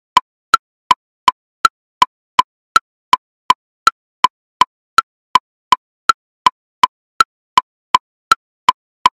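Metronome playing woodblock clicks at 54 beats per minute with each beat split into triplets: a higher woodblock click on the beat, then two lower ones. The clicks come evenly, nearly three a second.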